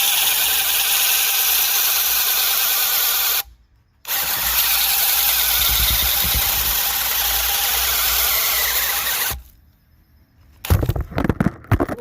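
DeWalt DCD996 cordless hammer drill running under load at its second speed: one long run, a short pause about three and a half seconds in, then a second, longer run that stops. A burst of clattering knocks follows near the end.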